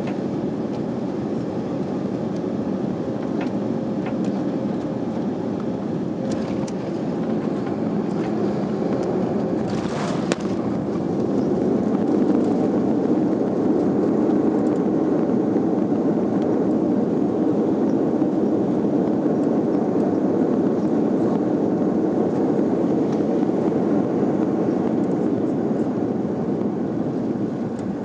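Steady rumble and rush of an Airbus A340 airliner's cabin, its engines and airflow heard from inside the cabin during the approach and landing. The noise grows louder about twelve seconds in, and there is a brief hissing rush just before that.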